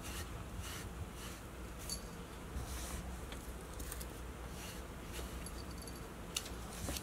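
Pet brush raking through a cat's fur in short, scratchy strokes, irregularly about every half second, with a faint tinkle of the cat's small collar bell now and then and one sharp click near the end.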